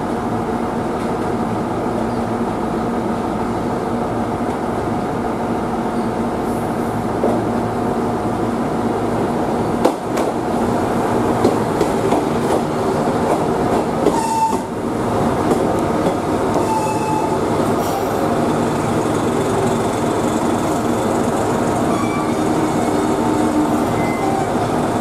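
A KiHa 110 series diesel railcar pulling into a station platform: its diesel engine runs steadily under the wheel and rail noise as it rolls past and slows to a stop. A sharp click comes a little before halfway, and short high wheel or brake squeals follow in the second half.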